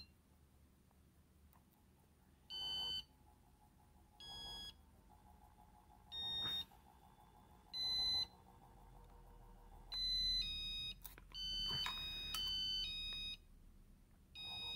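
Short electronic beeps, each about half a second long, at changing pitches: single beeps every second and a half to two seconds, then a quick run of several in a row about ten seconds in.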